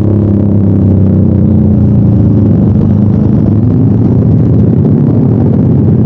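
Bored-up Honda Vario 125 automatic scooter with an aftermarket ERM exhaust, running under way with a loud, continuous exhaust note whose pitch shifts as the throttle changes.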